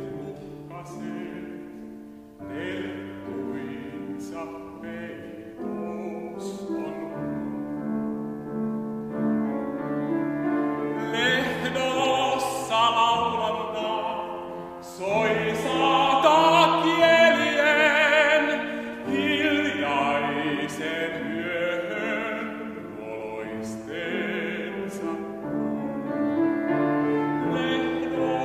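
Baritone singing a Finnish song in classical style with vibrato, over piano accompaniment; the voice swells to its loudest about halfway through.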